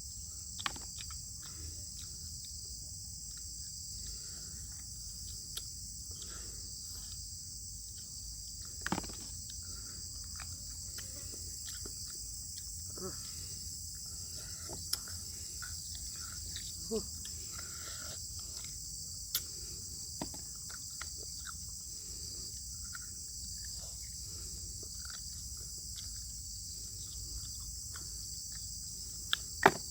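Gnawing and chewing on beef bones, with short scattered wet smacks and clicks and a sharper cluster of clicks near the end. A steady chorus of crickets runs underneath.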